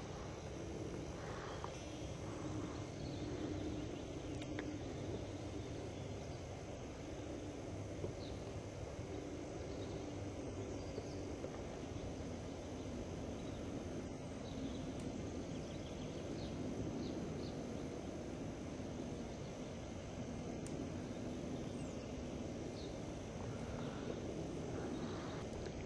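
Steady low outdoor background rumble, with a few faint short high chirps scattered through it.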